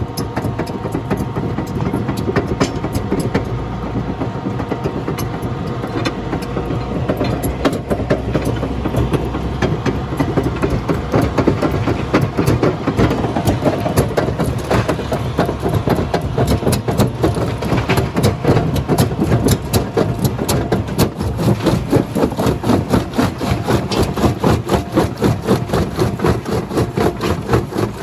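Small jaw crusher running, its jaw and flywheel knocking in a fast, steady rhythm as rocks crack and grind between the jaw plates. The knocking grows more distinct about halfway through.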